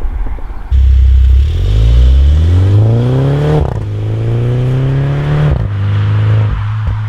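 The 2017 MINI John Cooper Works' turbocharged four-cylinder engine accelerating hard through an aftermarket Maxi-Tuner flap exhaust. The pitch rises, breaks briefly for an upshift and climbs again. The engine then drops back off the throttle, and a few exhaust pops and crackles follow near the end.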